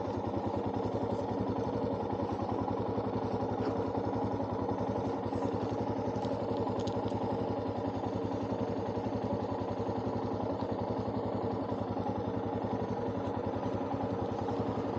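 Motorcycle engine running at a steady cruising speed, its firing pulses even and unchanging throughout.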